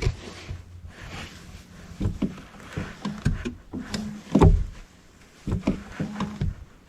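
Clutch pedal of a Nissan March Nismo being pressed and released in the footwell, giving irregular clunks and thumps, the loudest about halfway through. This is a check of the pedal after a warranty repair of its noise.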